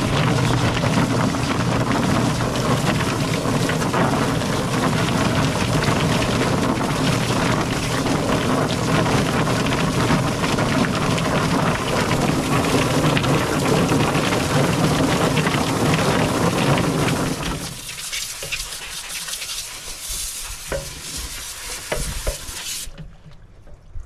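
Rite Farm Extra Large Pro Plucker running: its electric motor spins the rubber-fingered drum as scalded Cornish Cross chickens tumble against the fingers under a spray of hose water, a loud, steady churning noise with a low hum. The plucker stops about 17 seconds in, leaving a softer hiss of hose water that cuts off near the end.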